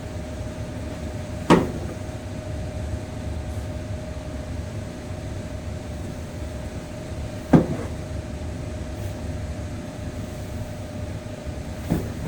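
Space heater's fan running with a steady hum and one constant tone, broken three times by a sharp knock or bang, the second about six seconds after the first.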